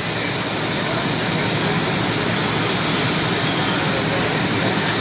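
Bell 222 helicopter's twin turbine engines running, a steady continuous rush.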